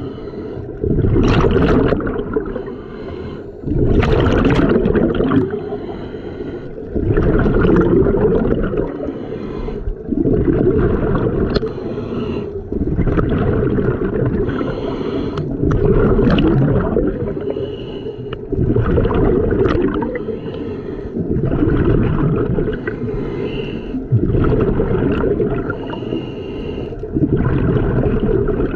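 Scuba diver breathing through a regulator underwater: a loud bubbling exhale roughly every three seconds, alternating with quieter inhales.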